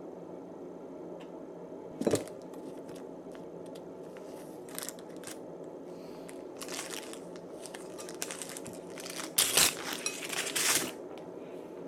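Handling noises: several short bursts of crinkling and rustling, as of packaging being handled, the loudest cluster about three-quarters of the way in, over a steady low hum.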